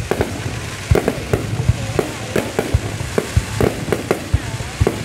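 Aerial fireworks going off: an irregular run of sharp bangs and pops, several a second, over a steady hiss.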